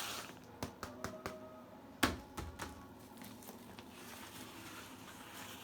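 A handful of short, sharp clicks and taps of a small hard object being handled, with one louder knock about two seconds in; faint room sound after.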